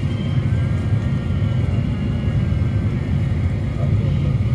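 Steady low cabin rumble of a Boeing 737 taxiing, its CFM56 jet engines at idle with a faint high whine, heard inside the passenger cabin.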